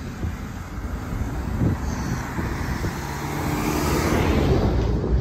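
A box lorry driving past at road speed, its engine and tyre noise growing louder as it approaches and loudest about four seconds in as it passes close by.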